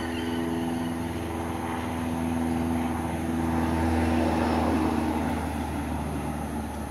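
An engine running steadily, with a steady hum and low rumble; the noise swells about four seconds in and then eases.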